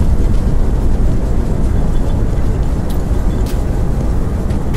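A steady, loud low rumble, with a few faint clicks.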